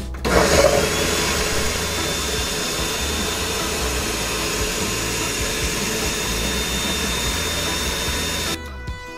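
Ninja countertop blender running at full speed, puréeing whole herbs, garlic, citrus juice and oil into a marinade. Louder for the first half-second as the blade hits the solid pieces, then a steady whir with a constant whine, and it cuts off suddenly about eight and a half seconds in.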